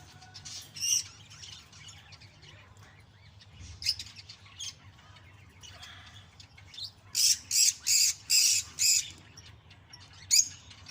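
Cockatiels calling: a few short chirps, then about seven seconds in a quick run of about six harsh, high squawks, and one more near the end.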